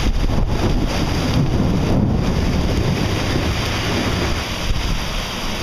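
Heavy rain pouring down in a storm, with gusting wind buffeting the microphone into a steady low rumble.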